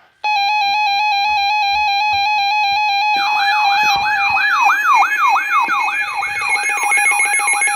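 Electronic alert sounds: a steady buzzy alarm tone, joined about three seconds in by a falling, siren-like sweep that repeats about three times a second over it.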